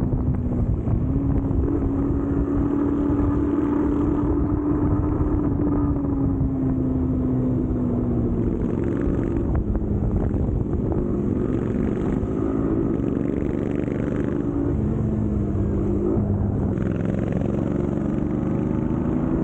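Royal Enfield Continental GT 650's 648 cc parallel-twin engine running through an aftermarket AEW103 exhaust, a steady exhaust note whose pitch drops slightly twice.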